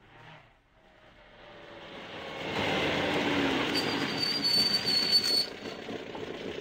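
Radio-drama sound effect of a car driving: the noise of the car builds up over a couple of seconds and holds, with a thin high squeal for about a second and a half in the middle. It falls away again near the end.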